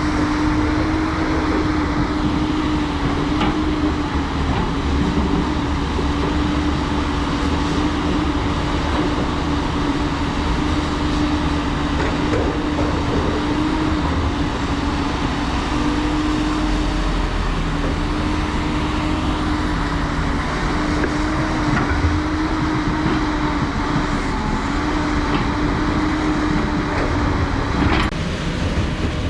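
Heavy diesel construction machinery running steadily under load, with a held whine over the engine noise. The sound changes abruptly near the end.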